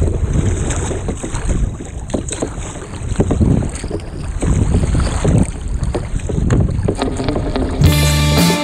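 Wind buffeting the microphone and water splashing and slapping against a sea kayak's bow and paddle as it is paddled through choppy water. Music starts near the end.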